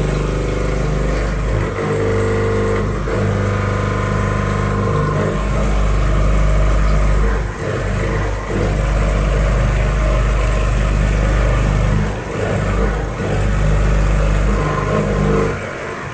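CNC milling machine cutting a block of steel: a steady mechanical hum and whir whose pitch shifts in steps every few seconds.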